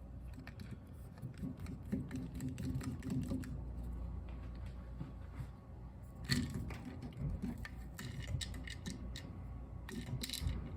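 Small clicks and taps of parts being handled while a commercial automatic urinal flush valve is taken apart, with a sharper click about six seconds in and another near the end.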